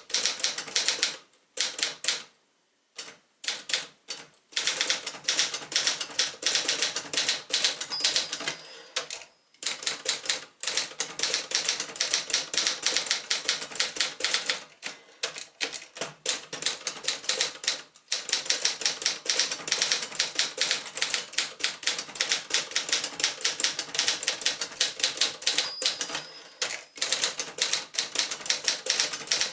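Typing on a 1973 Adler J2 manual portable typewriter: rapid runs of sharp keystroke clacks, broken now and then by short pauses.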